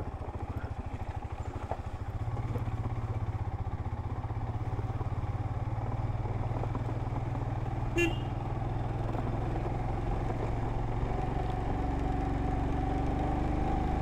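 Royal Enfield Himalayan's single-cylinder engine running steadily while riding, with one brief sharp sound about eight seconds in.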